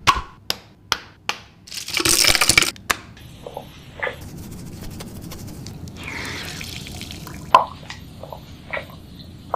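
Cleanser and makeup brushes being worked on a silicone brush-cleaning mat in a sink. Several sharp taps come first, then a short loud hiss about two seconds in, followed by liquid dripping and wet squishing with occasional clicks.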